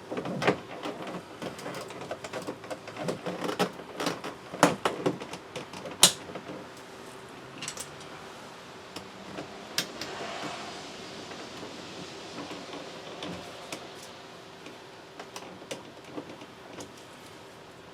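Plastic clicks, knocks and pops as a GMC Yukon's door trim panel is pried off the door and its push-in clips let go, with one sharp crack about six seconds in. After that, only scattered light ticks of the panel being handled.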